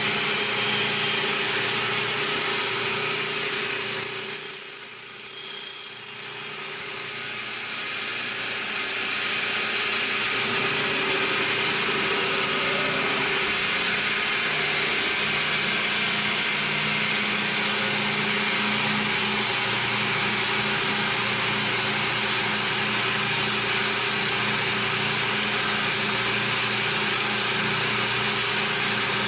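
CNC milling machine running a machining cycle, a steady mechanical drone with a constant hum under it. A whine rises a few seconds in, then the sound drops suddenly about six seconds in and builds back to the same steady running over the next few seconds.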